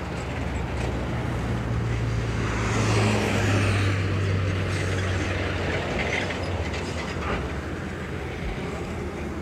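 A road vehicle passing in the open lane: a low engine hum and tyre rush swell to a peak about three seconds in, then fade away.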